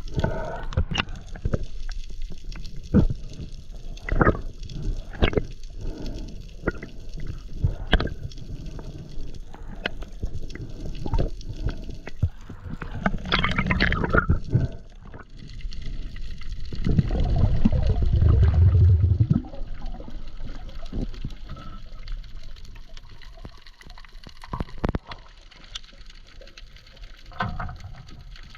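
Water sounds from a spearfishing dive, likely recorded underwater: scattered sharp clicks, a short bubbling gurgle about 13 seconds in, and a louder, lower gurgling rush of water around 17 to 19 seconds in.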